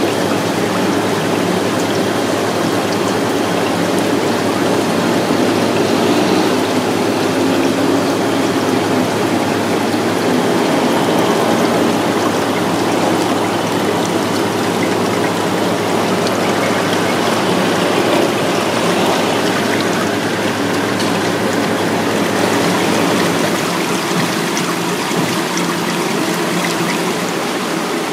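Steady running and splashing water in a live hagfish tank, with a low steady hum beneath.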